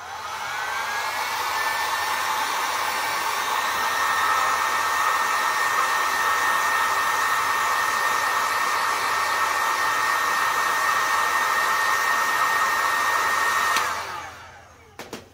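Handheld heat gun running: its fan spins up with a rising whine as it is switched on, blows steadily, then winds down when it is switched off near the end. A couple of clicks follow.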